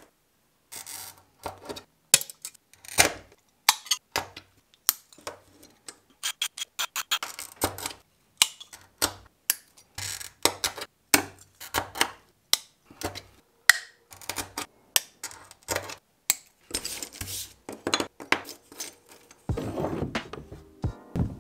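A quick, irregular series of sharp clicks and taps from glass and hand tools being handled on a workbench, with short silent gaps between them. Near the end there is a louder, rougher stretch of handling noise.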